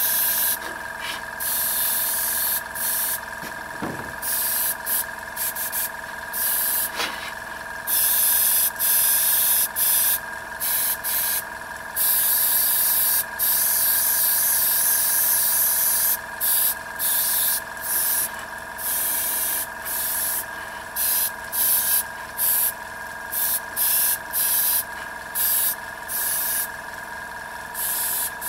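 Airbrush spraying paint in repeated on-off bursts of hiss, mostly short, with a few longer passes lasting a couple of seconds and one of about four seconds a third of the way in. Under it runs a steady hum from the air compressor.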